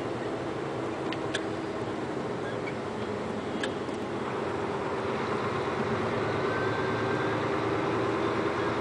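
Steady engine drone and road noise heard from inside a moving vehicle, with a few light ticks in the first few seconds.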